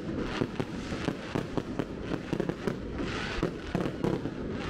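Aerial fireworks display going off: many sharp bangs and crackling pops at an irregular pace, over a continuous low rumble.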